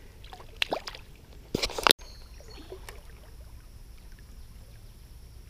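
Water splashing and sloshing in a plastic bucket as a hand works among the fish in it, with a loud splash or knock just before two seconds in that stops abruptly; after that, faint steady creek water.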